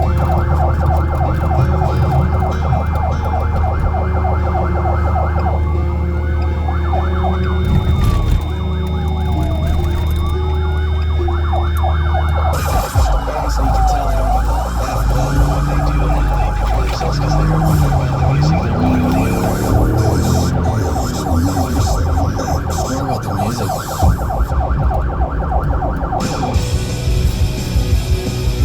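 Police car siren alternating between a fast, rapidly pulsing yelp and a slow rising-and-falling wail, over the low steady drone of the moving car; the siren stops near the end.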